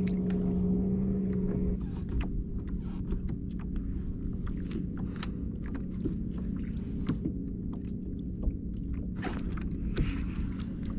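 A steady low rumble and hum on a small kayak on choppy water, with many small clicks and taps as the spinning rod and reel are handled. The hum is louder for the first couple of seconds.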